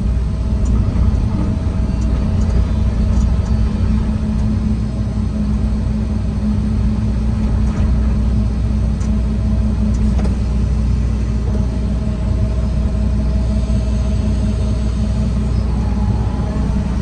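John Deere 245 excavator's diesel engine running steadily as the machine digs, heard from inside the operator's cab.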